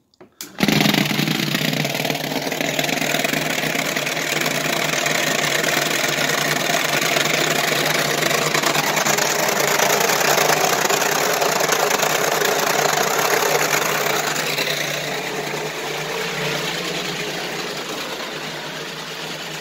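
Large Dillon vibratory tumbler switched on about half a second in, then running with a loud, steady hum and rattle as it shakes taped plastic powder containers of jacketed bullets in wet moly slurry. It grows fainter over the last few seconds.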